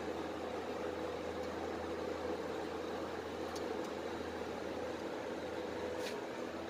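Steady hum and whirr of running machinery, with a low hum and a couple of steady tones, and a few faint clicks about three and a half, four and six seconds in.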